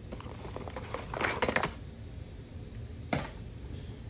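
Packaging and a cable being handled: a short patch of rustling and small clicks about a second in, then a single sharp click near the end.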